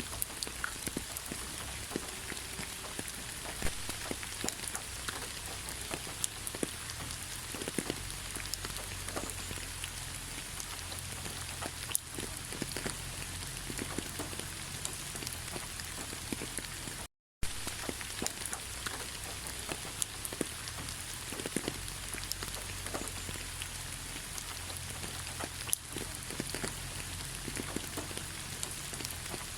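Steady rain falling, with many sharp individual drop hits scattered through it. About halfway through, the sound cuts out completely for a fraction of a second.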